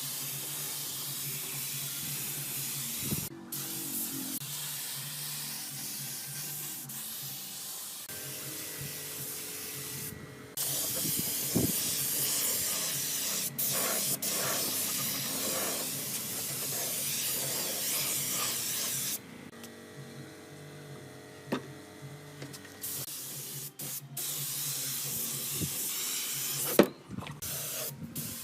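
Steady high spraying hiss that stops and starts abruptly several times, with a few sharp knocks, one loud near the end.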